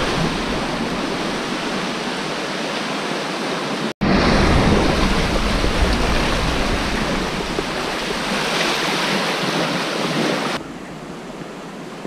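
Sea washing and breaking around the iron legs of a pier, mixed with wind buffeting the microphone. The sound cuts out for an instant about four seconds in and drops in level near the end.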